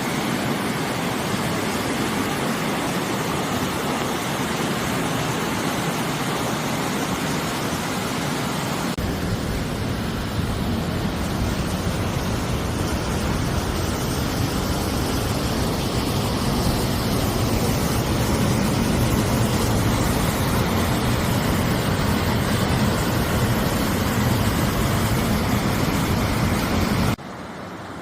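Steady rush of water from a mountain valley stream. The sound shifts abruptly about a third of the way in, as if to a different spot, and drops sharply just before the end.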